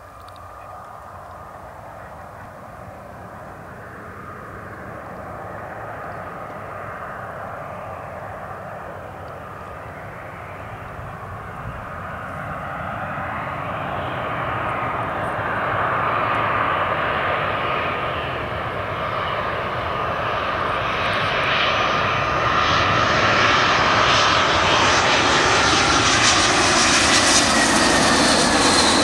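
An Airbus A320-231's twin IAE V2500 turbofans on final approach to land: a jet whine and rumble growing steadily louder as the airliner nears. In the last few seconds it passes close by, at its loudest, and its whine drops slightly in pitch.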